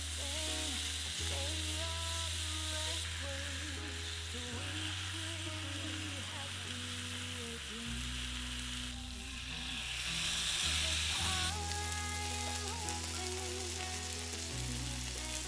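Mushrooms and asparagus sizzling in oil in a frying pan, the hiss getting louder for a few seconds twice. Soft background music with a bass line plays under it.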